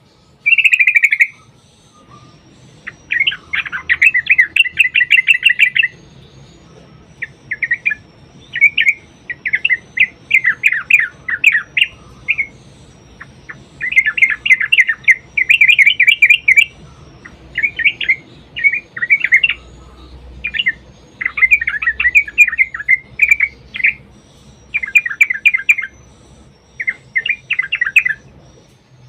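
Yellow-vented bulbul (trucukan) singing its bubbling song in repeated bursts of rapid chattering notes, each burst a second or two long with short pauses between. This is the long rolling 'ropel' phrasing used as a lure to set other bulbuls singing.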